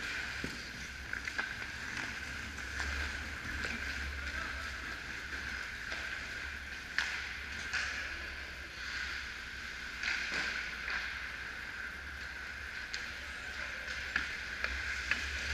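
Indoor ice hockey rink during play: a steady hiss and low hum of the arena with scattered sharp clacks of sticks and pucks and skates on the ice, the loudest clack about seven seconds in.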